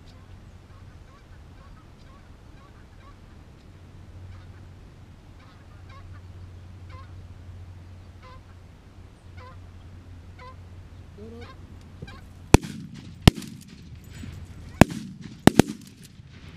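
Goose honks, faint and repeating about once a second and growing louder, then five shotgun blasts in the last four seconds, the last two almost together.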